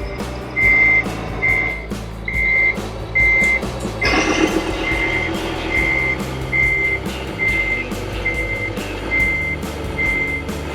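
Reversing beeper of a radio-controlled model truck's sound module: a single high beep repeating steadily, about every 0.7 seconds. A louder low sound joins about four seconds in.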